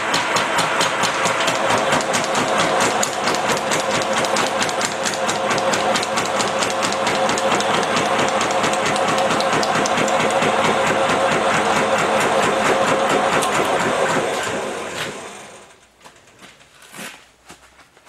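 Erco forming and flanging machine running, its ram hammering a flange into the edge of a sheet-metal panel in a fast, steady rhythm. The machine noise dies away about fifteen seconds in, leaving a few faint clicks.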